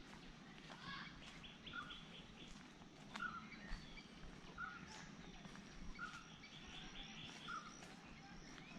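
Faint birdsong in the open air: one bird repeats a short note about every second and a half, and another chirps in quick series, over a low rumble of wind and background noise, with a few light footsteps.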